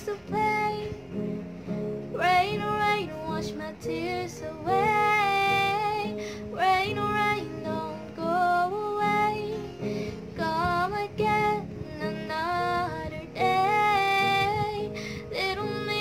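A woman singing a slow melody to her own acoustic guitar accompaniment, with strummed chords under the voice.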